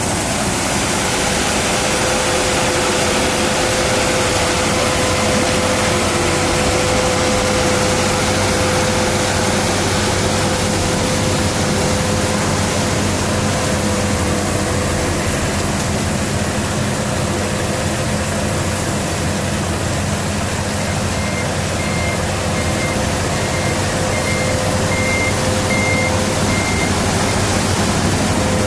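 Rice combine harvester running steadily at working speed, a loud, even engine and machinery hum. About three-quarters of the way in, a string of short, high beeps sounds for several seconds.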